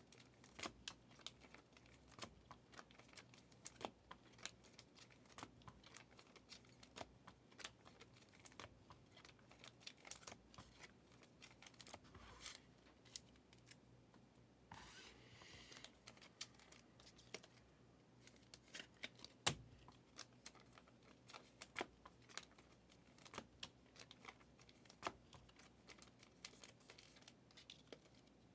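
Faint clicks and taps of trading cards and packs being handled, with a brief tearing crinkle of a card pack wrapper being ripped open about 15 seconds in.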